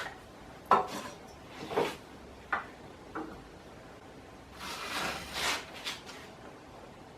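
Tools and timber being handled on a work surface: a few light knocks and clicks, then a short scraping, sliding rub about five seconds in.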